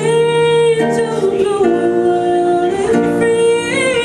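A woman singing long held notes while playing acoustic guitar.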